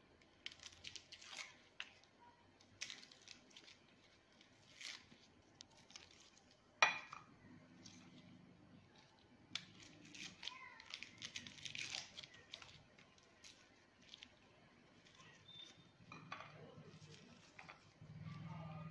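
Faint crackling and rustling of dry garlic skins as cloves are peeled with a knife, with light taps and scrapes of the blade against the plate. One sharper click about seven seconds in is the loudest sound.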